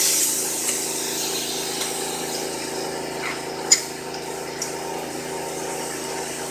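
Steady hum of a CNC milling machine with a light hiss, and a single sharp click just under four seconds in.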